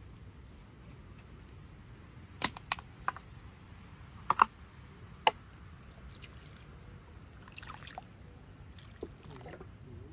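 About half a dozen sharp clicks and knocks, a few in quick succession, between roughly two and five seconds in, with fainter ticks later, over a steady low background noise.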